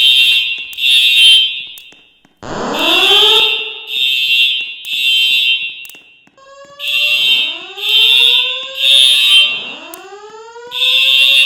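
Building fire alarm sounding the evacuation pattern: loud high beeps in groups of three, each group followed by a short pause, repeating. Rising swept whoop-like tones come in during and over the gaps.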